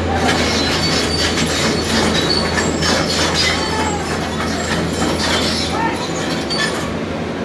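A JCB excavator moving across a concrete road: its diesel engine runs with a steady low hum under dense metallic clattering and short high squeals, which die away near the end.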